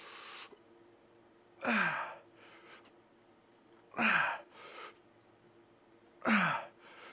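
A man breathing hard through dumbbell chest-flye reps. There are three forceful exhales about two seconds apart, each with a short grunt that falls in pitch, and each is followed by a quicker, quieter inhale. A faint steady hum runs underneath.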